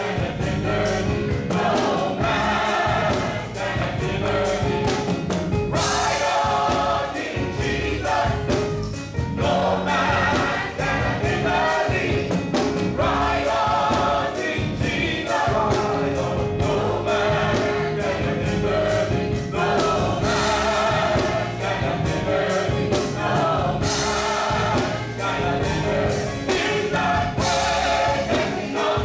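Gospel choir singing with a live band: voices in phrases over steady bass and drums.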